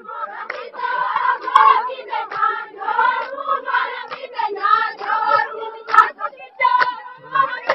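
A crowd of women singing and chanting together in a loose chorus, many voices overlapping in short phrases, with a few sharp claps scattered through it.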